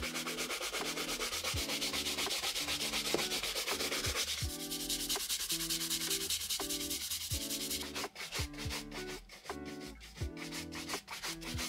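Bristle shoe brush scrubbed rapidly back and forth over a box-calf leather shoe, working shoe cream into the leather. The scrubbing is continuous at first; from about eight seconds in it breaks into separate quick strokes, about three a second.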